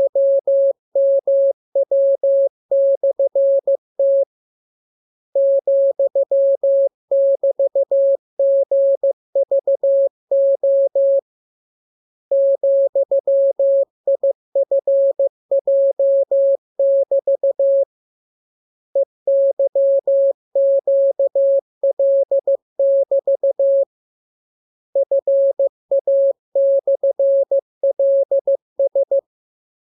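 Morse code sent as a single steady beep, keyed rapidly in dots and dashes, in runs of a few seconds each with a pause of about a second between them: a practice radiogram of code groups for learning to copy Morse by ear.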